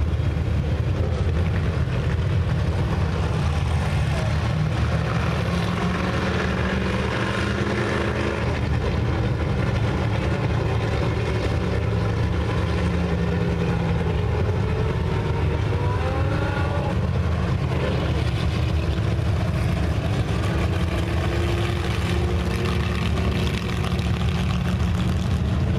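Several dirt-track race cars running laps on a clay oval, their engines droning steadily, with pitch rising and falling as cars pass now and then.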